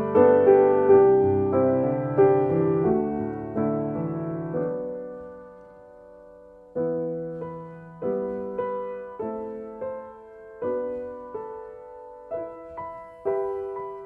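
Solo piano music, slow and gentle. A phrase dies away about five seconds in, and after a short pause new single notes and chords begin about seven seconds in.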